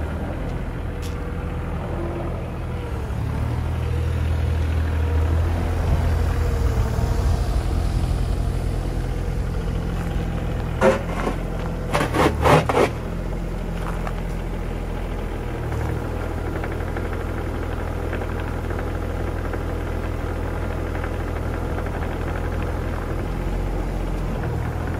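Diesel engine of a CAT 303.5 CR mini excavator running steadily, somewhat louder between about three and nine seconds in. A few sharp knocks come in a quick cluster about eleven to thirteen seconds in.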